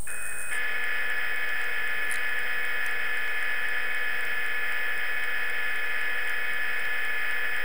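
Simulated CNC milling spindle sound from the machine simulator, a steady electric whine that settles onto one high tone about half a second in.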